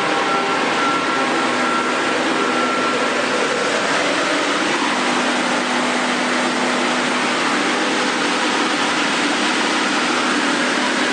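Amera Seiki T415/1500 CNC lathe running: a steady machine noise, with a faint high whine that fades out a few seconds in and a low hum that comes in around the middle.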